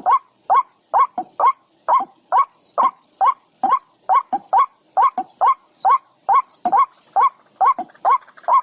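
A bird calling over and over in a steady rhythm, about two and a half short rising calls a second.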